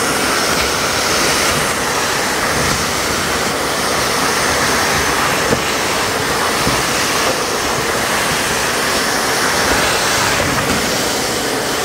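Miele Triflex HX2 cordless stick vacuum running at its minimum power setting, a steady rushing noise as it cleans the floor, with a couple of faint ticks about halfway through.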